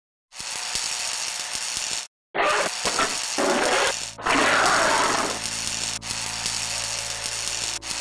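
Electric buzzing and crackling sound effect for an animated lightning arc. It cuts off briefly at about two seconds, surges louder between about two and five seconds, then settles into a steady buzz with a couple of brief dropouts.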